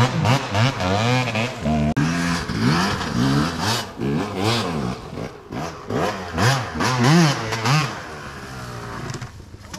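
Dirt bike engine revving hard up and down in quick, repeated throttle bursts, then dropping to a steady idle near the end.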